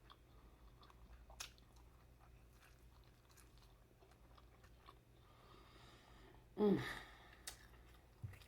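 A person chewing a mouthful of saucy seafood boil close to the microphone: soft wet smacks and small clicks, with a short hum of enjoyment, falling in pitch, about two-thirds of the way through.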